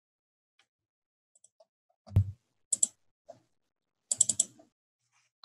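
Computer keyboard and mouse clicking: a few faint ticks, a heavier tap about two seconds in, then two quick runs of keystrokes.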